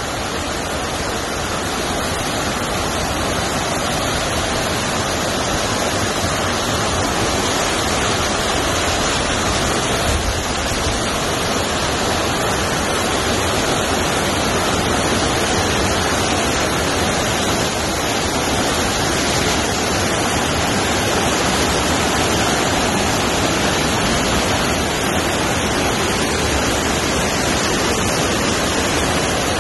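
A waterfall pouring steadily into a pool: a loud, even rush of falling water that grows a little louder over the first few seconds, then holds.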